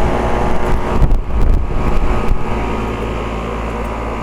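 2008 Payne two-and-a-half-ton central air-conditioner condensing unit running: a steady hum from the compressor over the rush of the condenser fan. The hum fades out about a second in, with a few low rumbles, and the fan's steady rush carries on.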